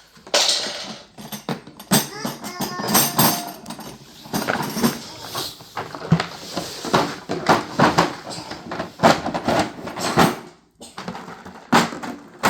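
Rapid, irregular clicks, knocks and clatter of hard objects being handled, with a brief pause near the end.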